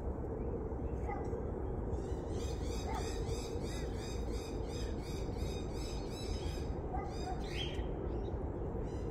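Birds calling over steady low outdoor background noise. A rapid, high, evenly repeated call runs from about two seconds in until about seven and a half seconds, with a few fainter single notes around it.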